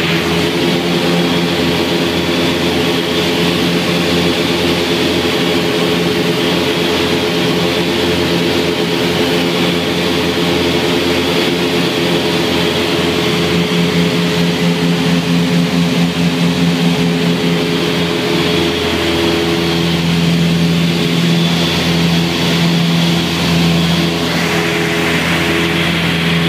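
Twin piston engines and propellers of a light twin-engine aircraft running steadily, heard from inside the cabin as a loud, even drone with a faint pulsing in its hum, over a steady rush of air.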